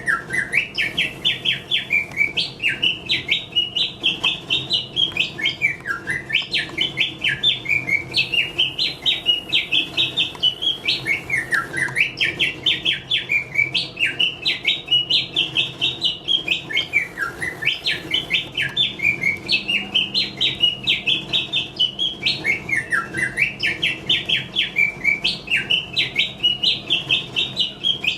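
Mechanical singing-bird automaton warbling: rapid chirps in one phrase of about five to six seconds, repeated almost identically over and over, with a faint steady low hum underneath.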